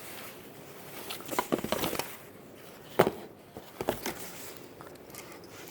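Handling noise from dresses being pulled from a large box: scattered rustles and light clicks, with one sharper knock about three seconds in.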